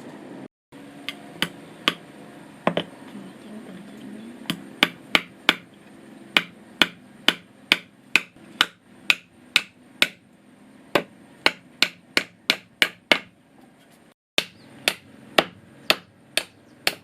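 Hammer driving nails into wood: a steady run of sharp blows, about two to three a second, with a few short pauses.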